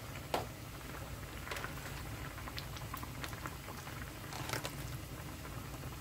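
Spicy oyster-stew broth boiling in a stainless steel pot: a steady low rumble with small scattered bubbling pops. Sharper clicks and splashes come about a third of a second in and again around four and a half seconds, as raw oysters are laid into the pot.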